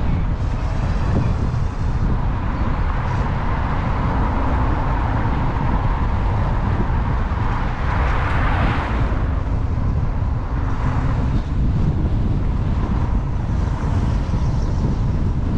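Riding noise from a CSC City Slicker electric motorbike at road speed: steady wind rush and road noise, with a faint steady whine and a swell of noise about eight seconds in.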